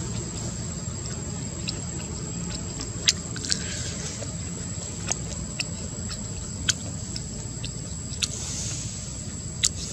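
Outdoor ambience: a steady low rumble and a constant thin high tone, with scattered sharp clicks and ticks, about half a dozen of them louder than the rest.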